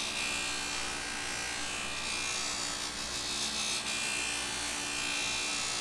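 Electric bench buffer running steadily, a waxed wooden hammer handle held against its small buffing wheel for polishing.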